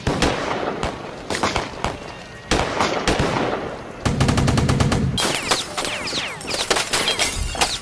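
Redone foley gunfire from police handguns: scattered bursts of shots, then a rapid run of about ten shots a second a little past the middle, followed by more shots mixed with quick falling whistles.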